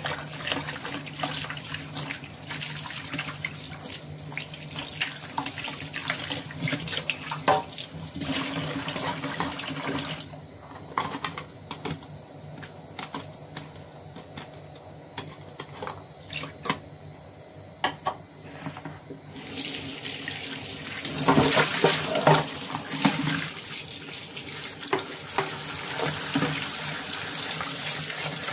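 Kitchen tap water running into a stainless steel sink while raw shrimp are rinsed by hand, with small clicks and knocks from utensils against the strainer and sink. The water is quieter for a stretch in the middle, then runs strongly again about two-thirds of the way through.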